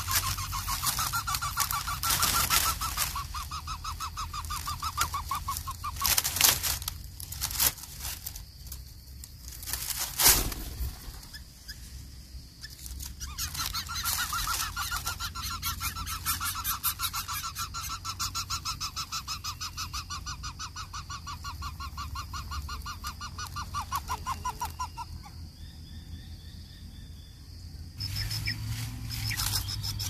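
Lesser coucal nestlings calling in the nest: long runs of rapid, evenly pulsed calls, with a few sharp knocks in the middle.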